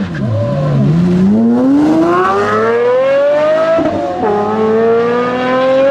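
Two supercars, a Pagani Zonda's naturally aspirated V12 and a Porsche Carrera GT's naturally aspirated V10, launching hard from a standstill side by side. The engine note dips at the launch, then climbs steadily at full throttle through first gear, drops sharply at an upshift about four seconds in, and climbs again.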